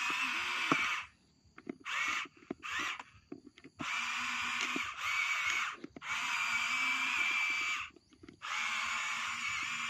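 Electric motors of a radio-controlled toy excavator whining as the boom and bucket move, in several stop-start runs: a few short ones, then longer ones of about two seconds with brief pauses between.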